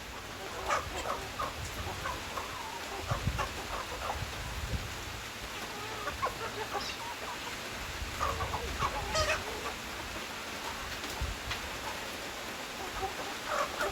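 Chickens clucking: many short, scattered calls from several birds, bunching up about a second in, past the middle and near the end, over a steady background hiss.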